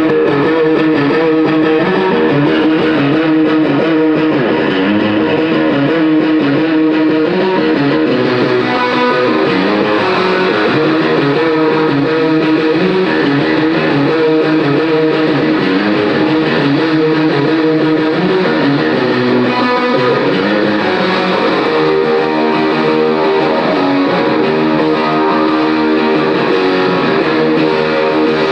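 Electric guitar playing chords and notes on its own through the PA during a sound check, the center guitar's line being tested.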